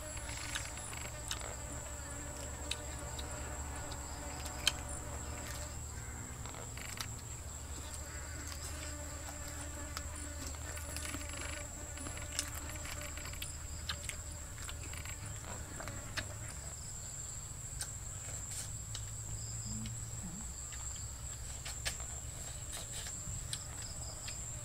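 Insects droning in one steady high-pitched note, with scattered light clicks and knocks.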